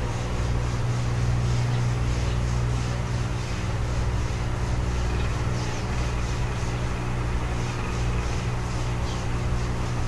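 Aquarium air pump humming steadily, with a faint hiss from the bubble curtain rising through the water.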